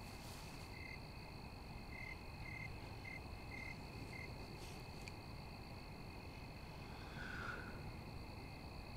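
Night chorus of crickets: a steady high trill, with a run of short repeated chirps in the first half. About seven seconds in there is one louder, lower call.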